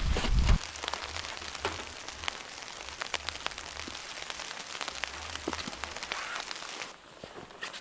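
A low rumble of wind on the microphone for the first half second, then an irregular patter of light ticks over a steady hiss.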